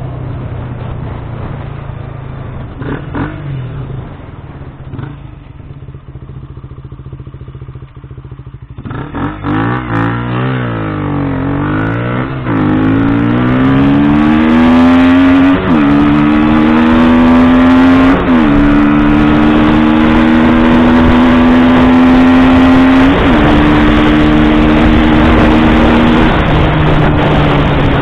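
KTM Duke 125's single-cylinder four-stroke engine, first running at a low steady note, then pulling hard from about a third of the way in, its pitch climbing and dropping back four times as it shifts up through the gears before settling into a steady cruise. Wind rush on the microphone grows with the speed.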